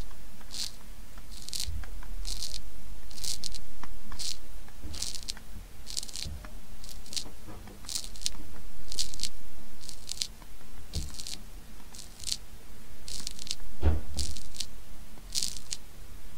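Wet squishing and crunching of moist soil, in short irregular crackles about one or two a second over a low rumble, with one heavier thump about fourteen seconds in.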